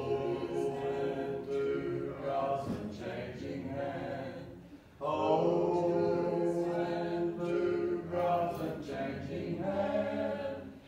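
Congregation singing a hymn a cappella, many voices together in long held notes, with a short break between lines about five seconds in.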